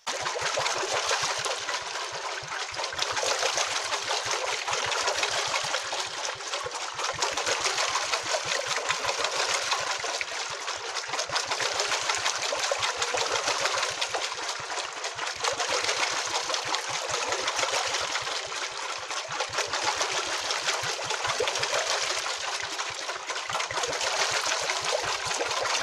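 Water rushing and splashing at a water-wheel-driven pump, a steady churning with a fast, uneven low pulsing underneath.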